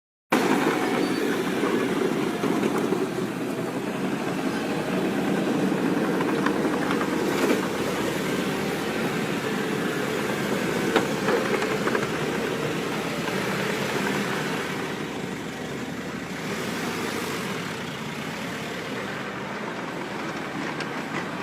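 Heavy earthmoving machinery, a bulldozer with a sand-hauling dump truck, running steadily with a few sharp clanks. It gets a little quieter in the second half.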